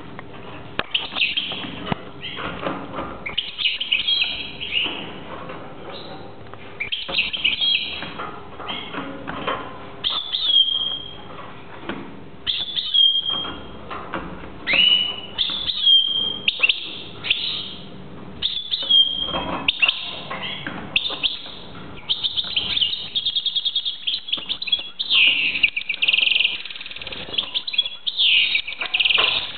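European goldfinch singing: a continuous twittering song of varied chirps and short rising notes, with fast trills of repeated notes in the second half.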